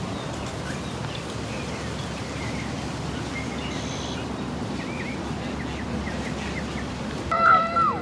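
Outdoor ambience: a steady rushing noise with faint, scattered bird chirps, then near the end a loud, drawn-out cry that drops in pitch.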